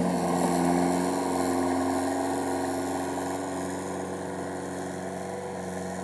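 JCB backhoe loader's diesel engine running steadily as the machine drives off, fading gradually as it moves away.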